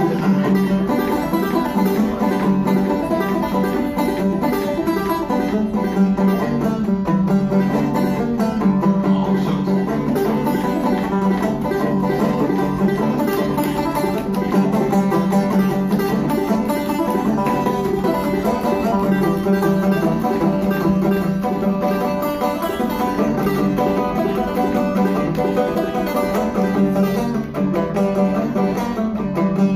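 Banjo played solo: a steady instrumental run of plucked notes, with no singing.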